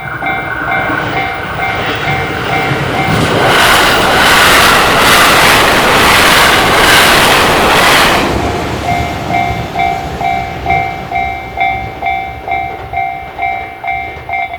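Japanese railway level-crossing warning bell ringing its rapid "kan-kan" clang, about two strokes a second. About three seconds in, a train passes, its wheels clacking over rail joints and drowning out the bell for about five seconds; then the bell is heard again.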